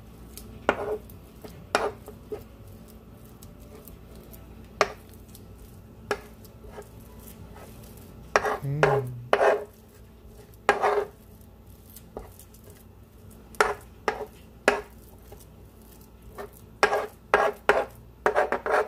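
Metal spoon mashing butter and minced garlic on a cutting board: irregular short scrapes and knocks of the spoon against the board, some in quick clusters.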